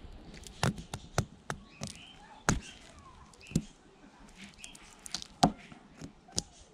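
Small metal screwdriver tip picking and prying at the red-taped coil and laminated core of a small transformer, with irregular sharp clicks and taps of metal on metal, about a dozen, the loudest a little after five seconds in.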